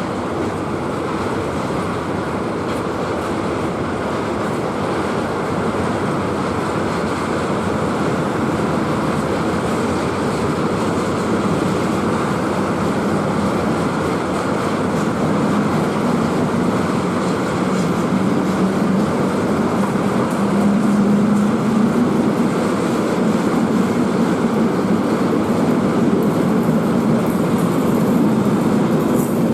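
A train rolling past on the rails, a steady rumble that grows slowly louder, with a low hum coming in about halfway through.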